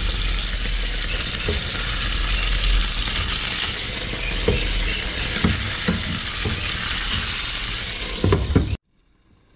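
Fish pan-frying in hot oil in a wok over medium heat: a steady sizzle, with a few light knocks against the pan. The sizzle cuts off suddenly near the end.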